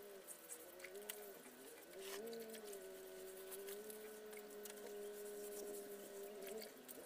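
A faint steady hum that holds one pitch with small wavers, with scattered light clicks and taps over it.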